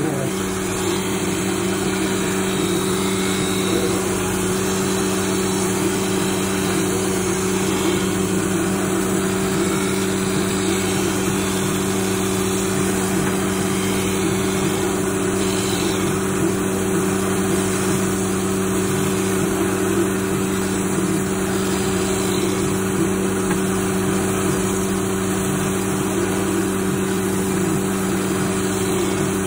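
Nidek 7070 lens edger grinding an eyeglass lens during its automatic cycle: a steady motor hum from the spinning grinding wheel, with a hiss from the grinding and the water spray on the wheel and lens.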